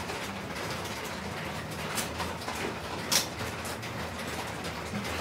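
Mahjong tiles clicking and clacking on the table as players draw and discard, with two sharp clacks about two and three seconds in, the second the loudest, over a steady low hum.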